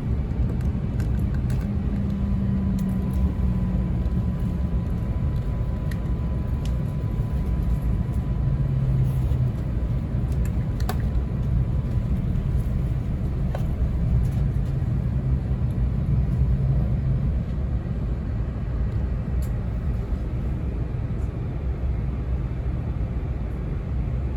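Interior running noise of an E2 series Shinkansen car: a steady low rumble with a faint hum in it that sits lower in pitch in the second half.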